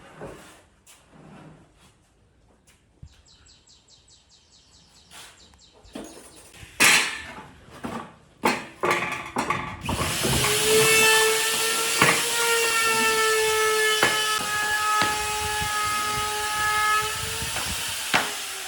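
Knocks of wood being handled and a short burst of fast ticking, then about ten seconds in a power tool starts up. It runs with a steady whine over a loud hiss, with a few sharp knocks, and its pitch sinks as it winds down near the end.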